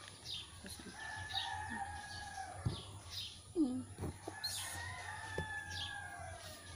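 A rooster crowing twice, each crow a long, arching call of about two seconds, with small birds chirping and a few light knocks in between.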